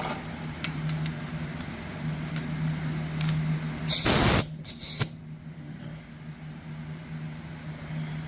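A hissing blast of pressurized spray lasting under half a second, followed by two short puffs, used to clean out the inside of a paint sprayer's valve retainer. A few light ticks come before it, and a steady low hum runs underneath.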